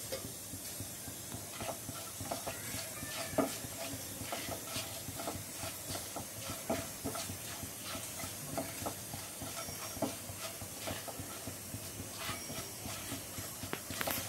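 Whole spices sizzling in hot oil in a non-stick kadai as the tempering (phoron) fries: a steady hiss with frequent small pops and crackles, stirred with a silicone spatula.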